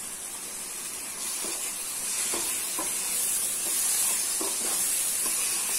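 Chopped tomatoes sizzling in hot oil and masala paste in a non-stick pan, stirred and scraped with a wooden spatula in short strokes. The sizzle swells a little after about a second as the tomatoes are worked into the paste to fry down.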